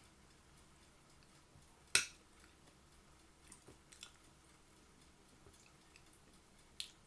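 A spoon clicking and scraping against a plate while someone eats: one sharp click about two seconds in, a few softer ones around four seconds, and another near the end.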